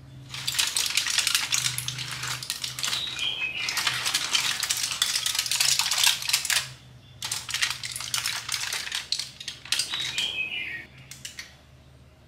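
Aluminium foil crinkling and crackling as a foil packet is pulled open and peeled back by hand, in two long spells with a short break about seven seconds in.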